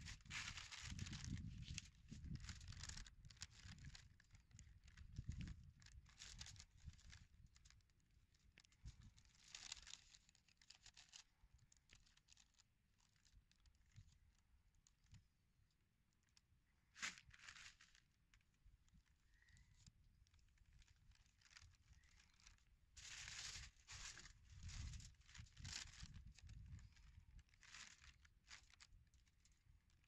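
Faint rustling and crinkling of baking paper under hands preparing a raw sea bream, with one sharp tap about halfway through.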